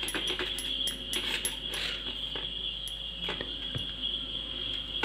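Fingers stirring raw milk and almond oil in a small steel bowl: soft, scattered scrapes and taps against the metal, over a steady high-pitched whine.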